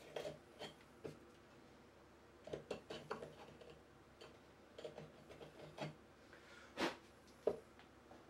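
Chisel working wood by hand: a string of short, irregular scrapes and taps, the loudest near the end.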